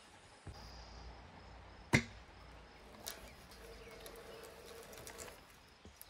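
One sharp knock about two seconds in, with a few fainter clicks after, as a log is levered into place on a bandsaw mill bed with a hand tool.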